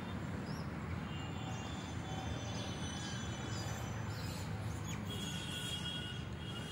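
Birds chirping in short, thin high calls and brief trills over a steady low rumble.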